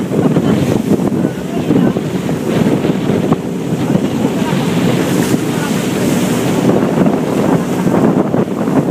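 Wind rushing over the microphone aboard a fishing boat under way at sea, with waves washing along the hull and a steady engine hum underneath, loud and unbroken.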